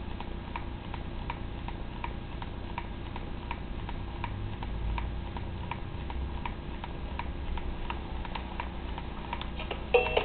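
Steady, regular ticking, about two ticks a second, over a low hum. Electronic toy music starts right at the end.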